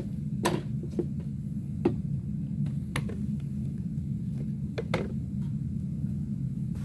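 Scattered plastic clicks and knocks as the Bissell Powerforce Compact's dust bin is unlatched and handled for emptying, over a steady low hum.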